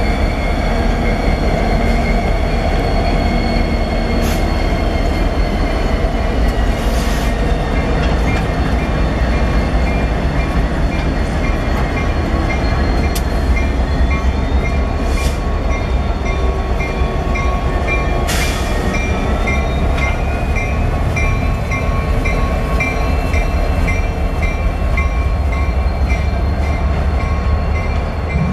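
Freight train rolling past with a steady heavy rumble and high, wavering wheel squeal, joined by a few short bursts of hiss.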